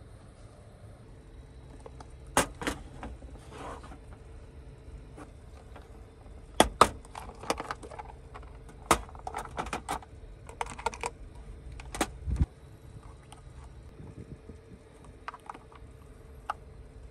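Objects being handled: a series of sharp clicks, knocks and rattles in clusters, with a heavier low thud about twelve seconds in and a few lighter ticks near the end, over a steady low rumble.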